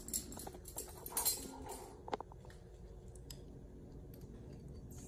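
Metal measuring spoon clicking and scraping against a small ceramic bowl while fishing a piece of eggshell out of a cracked egg. There are a few light clicks in the first half, the sharpest about two seconds in, then only faint ticks.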